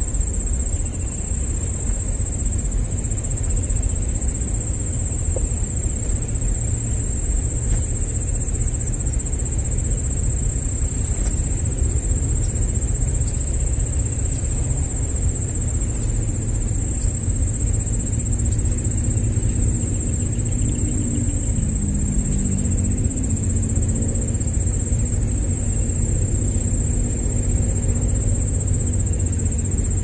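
A steady, high-pitched insect drone runs without a break over a low rumble.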